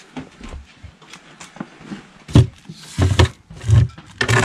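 Handling knocks and thumps: a few light clicks, then four heavier thumps over the last two seconds.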